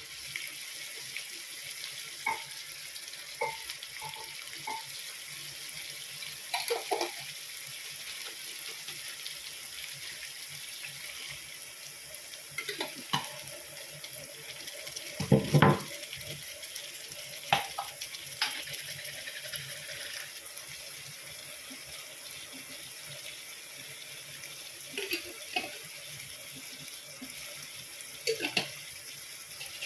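Water running from a tap into a kitchen sink, with scattered clinks and knocks of things being handled or rinsed under it. The loudest knock comes about halfway through.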